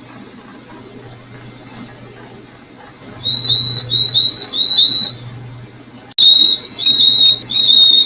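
Small songbird calls: short chirping notes repeated quickly in three runs, a brief one about a second and a half in, a longer one in the middle and the loudest near the end.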